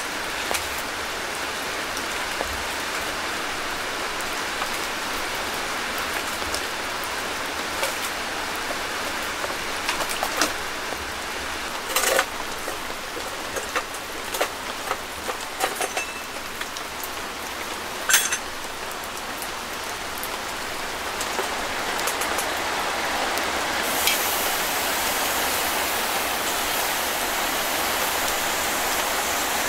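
Steady rain falling on a tent shelter's fabric roof, heard from inside. In the middle come several metal clanks and knocks, the loudest two about six seconds apart, as the cooktop lid plate of a Winnerwell Nomad View wood stove is worked with a lifter tool. A brighter hiss comes in near the end.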